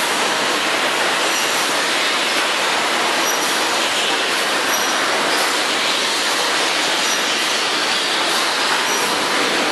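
Loud, steady din of running detergent-packaging machinery, a dense mechanical hiss and rattle with faint brief high whines now and then.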